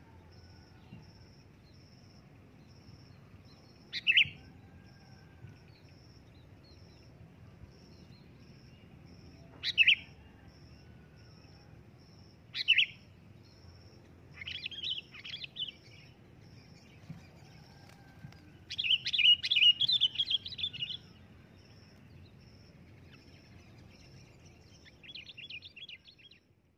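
Sooty-headed bulbul (kutilang) calling: three short, loud calls several seconds apart, then runs of rapid chattering notes, the loudest burst about two-thirds of the way through. A faint, evenly pulsing high tone runs underneath.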